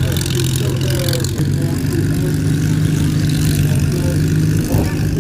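An engine running steadily with a low, even hum, its pitch stepping up slightly about a second and a half in.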